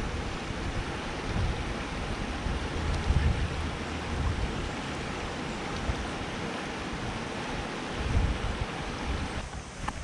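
Wind buffeting the microphone outdoors in uneven low gusts, over a steady rushing hiss.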